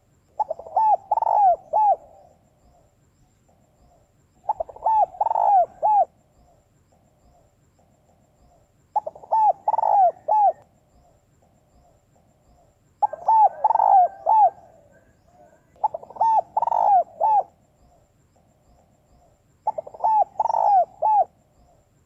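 Female spotted dove cooing in six phrases of about four quick coos each, one every three to four seconds, with faint soft coos between them. It is the female's call that rouses male spotted doves.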